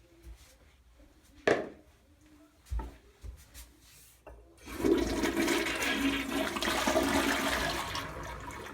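Gerber Viper toilet with a 3-inch flush valve flushing: a loud rush of water starts about five seconds in and tapers off near the end. Before it come two sharp knocks.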